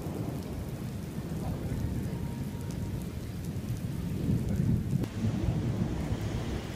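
Heavy rain falling in a severe thunderstorm, with a low, continuous rumble of thunder that swells about four seconds in.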